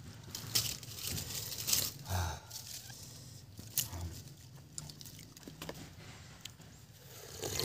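Close-up eating sounds: irregular chewing, lip-smacking and sucking clicks from people eating clams and jackfruit with their fingers.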